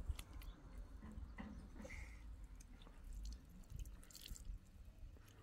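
Faint scattered clicks and light knocks over a low rumble.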